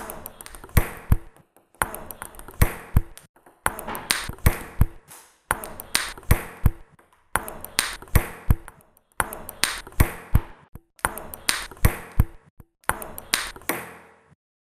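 Table tennis ball clicks off paddle and table in quick rally-like clusters. The same pattern repeats about every two seconds, then cuts off suddenly near the end.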